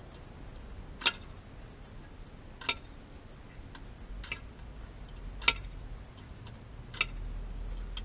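Five sharp clicks, about one every second and a half: the gas water heater's pilot igniter snapping a spark at the spark rod of the pulled-out burner assembly.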